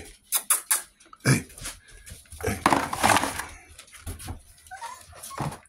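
A disposable aluminium foil pan of puppy mush being handled and set down, with a dense rustling clatter loudest about three seconds in. Around it come sharp clicks and taps as the puppies move on the wooden floor.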